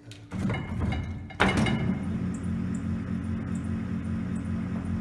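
Shkondin motor-generator starting up on battery power: a few clicks as the leads are connected, a sharp snap about a second and a half in, then a steady low electric hum as the motor runs.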